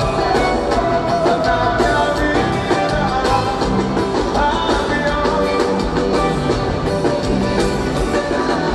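Live forró band music with a lead singer, the band playing at full volume.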